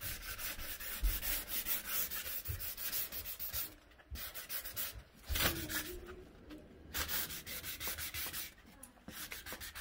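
Sanding sponge rubbed by hand in quick back-and-forth strokes over a cured epoxy glaze coat on a countertop, scuffing the surface up before a fresh coat. The strokes stop briefly a few times.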